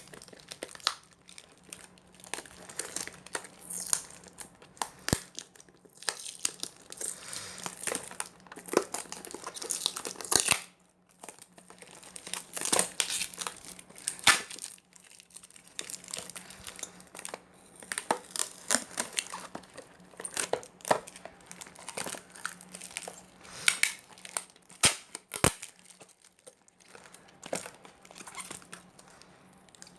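Plastic packaging crinkling and tearing in irregular handfuls as puzzle-cube boxes are unwrapped, with a few sharp clicks, the loudest about five, ten and twenty-five seconds in.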